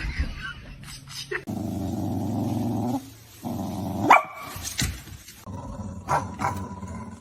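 A dog growling in two long stretches, with short sharp barks in between and after.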